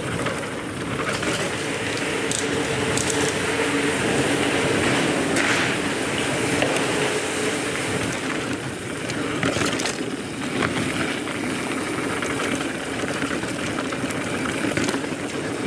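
Transition Spur 29er mountain bike rolling fast down a dirt singletrack: a steady hum of knobby tyres on hardpack, with scattered clicks and rattles from the bike over bumps.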